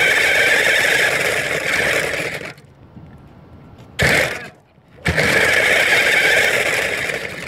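Battery-powered ride-on toy car driving: its electric motor and plastic wheels running loudly over the ground. It stops about two and a half seconds in, gives a short lurch about four seconds in, then drives again from about five seconds until just before the end.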